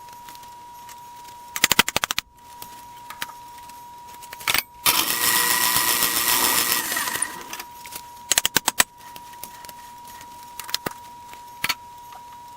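Workshop tool noises: a quick rattling run of sharp clicks, then a machine running for about two seconds, then another quick run of clicks. A faint steady high whine sits under it all.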